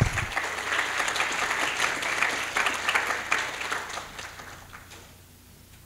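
Audience applauding, many hands clapping together, dying away about five seconds in.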